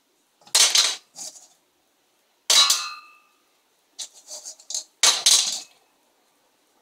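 Stones dropped one at a time into a stainless steel saucepan, clanking against the metal. There are three loud clanks with lighter clinks between them, and the second clank rings briefly.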